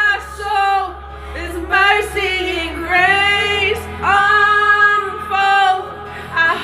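Song with a woman singing held, drawn-out notes over a steady low accompaniment.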